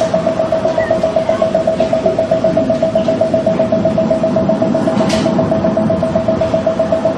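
Mind Navigator sound-and-light relaxation device playing its steady mid-pitched tone in rapid, even pulses, a 'pon-pon-pon' sound.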